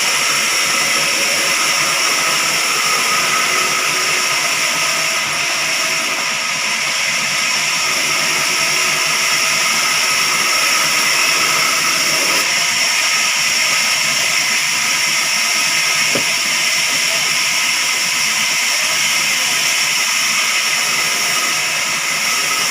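Sawmill saw cutting a wooden log: a steady, loud hiss with a constant high whine.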